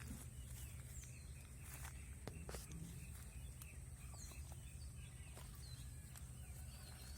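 Outdoor garden ambience: small birds chirping again and again over a steady high-pitched tone and a low hum, with scattered clicks and rustles of someone moving about the plants.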